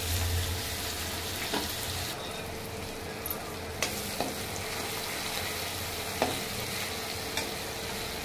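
Chopped onions sizzling in hot oil in a kadhai, fried with cumin seeds. A slotted metal spatula clicks against the pan a few times as they are stirred.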